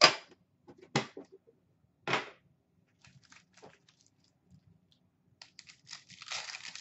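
Foil hockey-card packs being handled: three sharp crinkling slaps about a second apart as the packs are set down and stacked, faint rustling, then a wrapper being torn open near the end.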